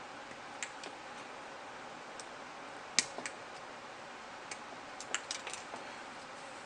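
Small sharp plastic clicks and taps from handling and cutting parts off a plastic model kit runner, scattered, with the loudest about three seconds in and a quick cluster around five seconds in, over a faint steady hiss.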